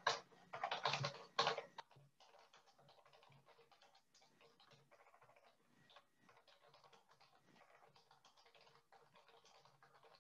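Computer keyboard typing: quick, irregular key clicks picked up over a video-call microphone. The clicks are louder in the first couple of seconds and faint after that.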